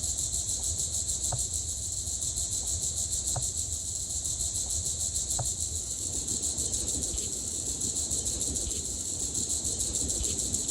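Steady chorus of night insects such as crickets, a fast pulsing trill held in two high bands, over a low rumble. Three faint short clicks come about two seconds apart in the first half.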